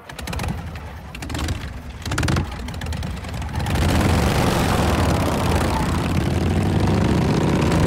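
Several motorcycle engines starting and revving with a rapid popping, then a group of motorcycles pulling away together, growing louder and steadier from about four seconds in.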